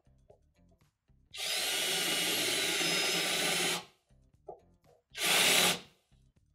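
Cordless drill with a 3/8 bit cutting a chamfer into a bolt hole in an aluminium wheel hub: one run of about two and a half seconds, then a short second run of under a second.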